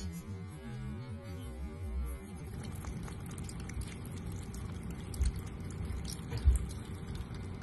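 A thin stream of tap water running from a faucet while a cat laps at it, with many small wet clicks of its tongue. Two low thumps come in the second half, and a faint pitched hum is heard for the first two seconds or so.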